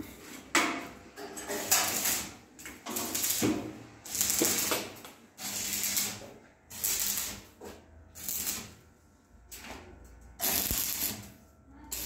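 Electric arc welding on a steel-framed washing-machine drum fire pit: a series of short welding bursts, each under a second or so, with pauses between them.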